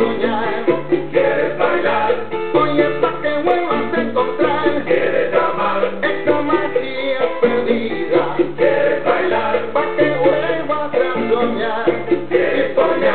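Background music: a bass line stepping between notes under a busy melody, running without a break.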